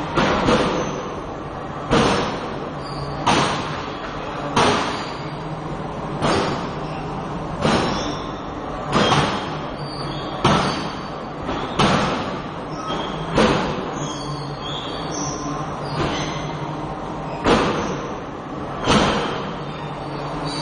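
Forging hammer striking hot metal in a slow, even rhythm, about one blow every second and a half, each blow ringing briefly, with a longer pause near the middle. A steady low hum runs underneath.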